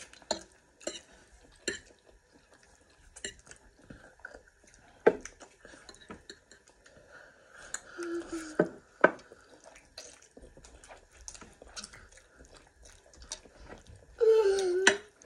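Eating at a table: scattered sharp clicks and clinks of utensils against a plate or dish. A short, high pitched voice sounds near the end.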